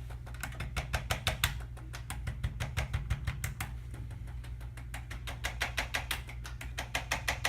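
ArthroStim handheld chiropractic adjusting instrument firing rapid taps into the neck, about eight to ten clicks a second in runs with brief pauses, over a steady low hum.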